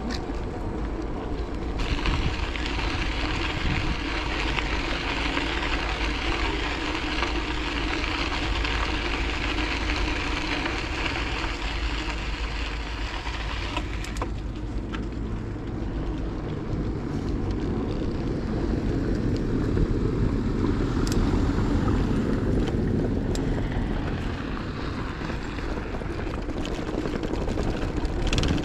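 Riding a bicycle: wind buffeting the microphone over the steady rush of the tyres rolling on the path. A brighter hiss in the noise drops away about halfway through.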